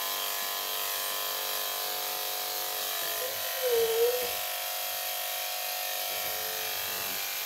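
Electric dog-grooming clippers fitted with a #10 blade running with a steady buzz as they shave the dog's underside, with a short wavering whine about three and a half seconds in.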